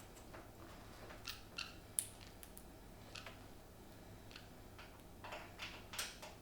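Scattered light clicks and ticks from small hard objects being handled, with one sharper click about two seconds in and a few more close together near the end.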